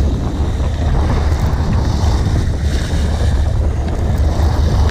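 Wind buffeting the microphone aboard a sportfishing boat at sea, over a steady low rumble and the rush of water.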